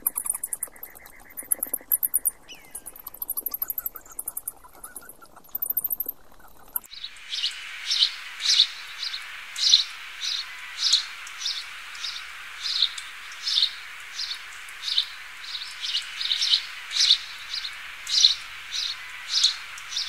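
Bat chittering: bursts of very fast, high-pitched clicks with short gaps for about the first seven seconds. Then a tricolored parrotfinch calls, short high chirps repeated about twice a second over a steady hiss.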